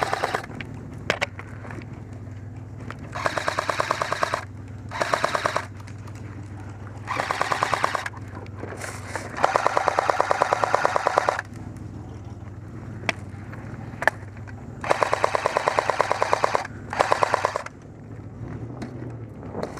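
Airsoft rifle firing full-auto in about seven bursts of rapid, evenly spaced shots, the longest about two seconds. A steady low hum from the truck's engine runs underneath.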